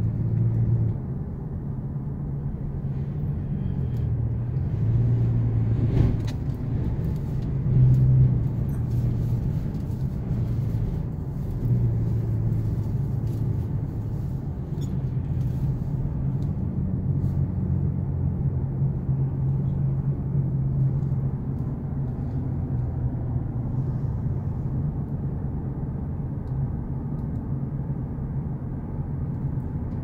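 Steady low rumble of road and engine noise inside a moving car's cabin, with a couple of brief louder bumps about six and eight seconds in.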